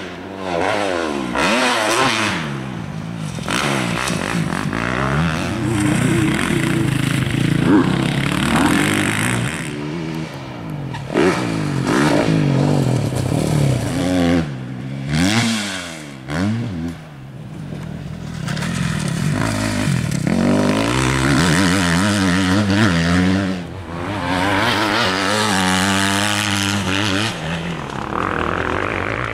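Several motocross bikes running on the track, their engines revving up and falling back again and again as they accelerate, shift and back off, with more than one bike often heard at once.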